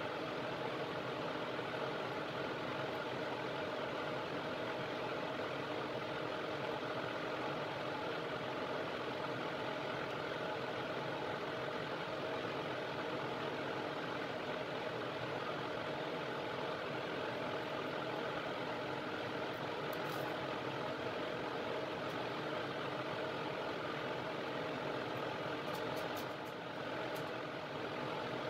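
Steady whirring hum of an electric fan motor running without change. A few faint light clicks come in the last third.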